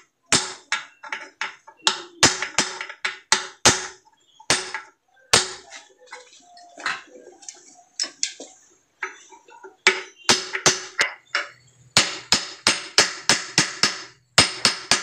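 Hammer blows on the steel of a car's ball joint as it is being rebuilt. The blows come in quick runs of about three to four a second, each with a short metallic ring, with a quieter gap midway.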